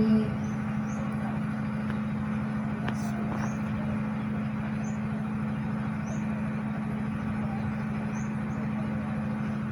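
Steady background hum with an even rush, like distant traffic, and a few faint short high chirps now and then.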